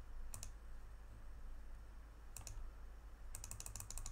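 Faint, sharp computer keyboard clicks: a click about half a second in, another just before halfway, then a quick run of about ten taps near the end.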